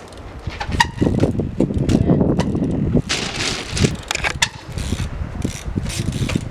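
Trials bike being ridden on wet ground: tyres rolling and scrubbing, with several sharp knocks from hops and landings and a brief hiss of tyres on the wet surface a few seconds in.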